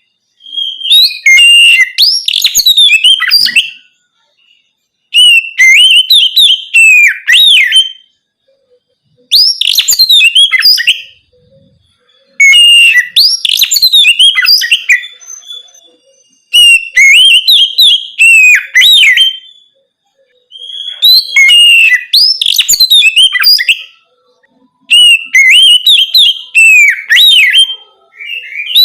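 Oriental magpie-robin (kacer) singing loudly in the clear, open 'ngeplong' style. Phrases of rapid, swooping whistles and chirps, each about two to three seconds long, repeat with short pauses between them, about seven in all.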